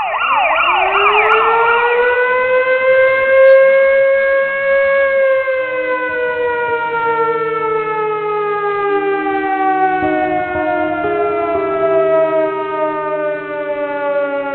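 An air-raid siren winds up over about four seconds, with fast warbling sweeps near the start, then slowly winds down in pitch. A low drone of steady held notes comes in partway through and stays under the falling siren.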